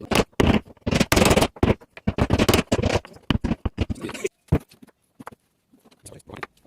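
Irregular knocks and scrapes, quick and dense at first, then sparse, fading to near silence about five seconds in before a few faint knocks near the end.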